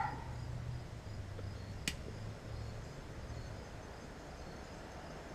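Quiet outdoor background: a steady low hum with faint insect chirping, and one sharp click about two seconds in.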